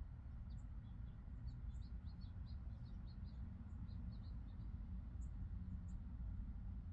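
Small birds chirping: short, high, quick notes, with a busy run of chirps in the first few seconds and scattered single ones after. Under them is a steady low rumble.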